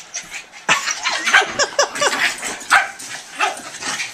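Dogs play-fighting, one giving a quick series of short, high yips and barks that fall in pitch, starting about a second in, with a few more calls near the end.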